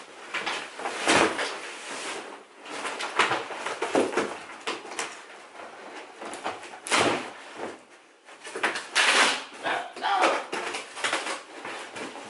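Large cardboard bike shipping box being hauled, tipped upright and shifted about: irregular scraping and rustling of cardboard with dull knocks, several louder scrapes spread through.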